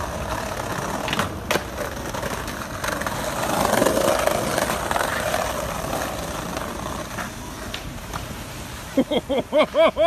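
Skateboard wheels rolling over brick pavers, a steady rumble that grows louder in the middle, with a few light clicks of the boards. Near the end a voice breaks into a quick run of high yelps.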